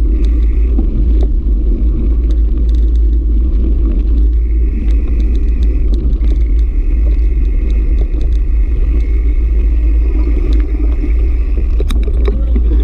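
Wind buffeting a bike-mounted camera's microphone in a steady low rumble, over mountain-bike tyres rolling and crunching on a gravel dirt track with scattered small ticks. A thin high buzz comes in about four seconds in and stops near the end.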